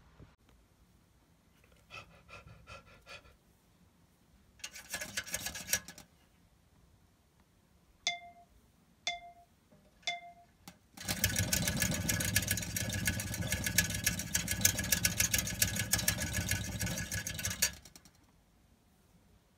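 A run of homemade sound effects recorded one after another: a short rattle, three short beeps about a second apart, then a loud buzzing rattle lasting about six seconds.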